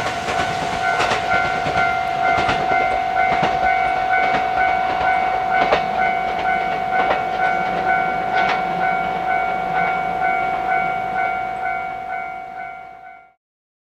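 JR West 227 series electric train running past: a rail-joint clack about every second or so over the running noise, with a steady high whine and its overtones held throughout. The sound dies away and cuts off abruptly near the end.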